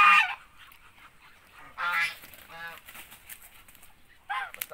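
Domestic ducks calling loudly and harshly in alarm as they are chased with a catching net: a loud call at the start, another about two seconds in, and several quick ones near the end.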